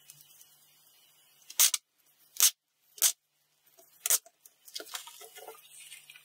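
Wide clear packing tape pulled off its roll in four short, loud rips, followed by softer rustling as the tape is pressed and smoothed onto a paper sheet.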